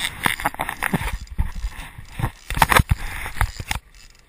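Rapid, irregular knocks and scraping close to the microphone, stopping abruptly near the end.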